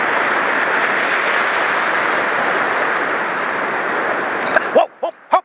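Ocean surf washing over shoreline rocks: a steady rushing noise that cuts off suddenly near the end.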